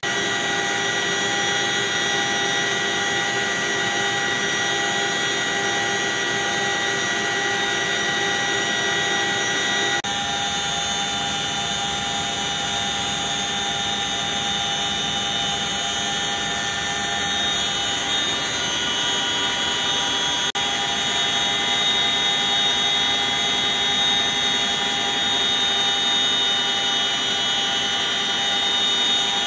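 Military helicopter heard from inside its cabin: a steady, loud drone of turbine whine and gearbox tones over rotor noise. The tones shift abruptly about ten seconds in, then run steady again.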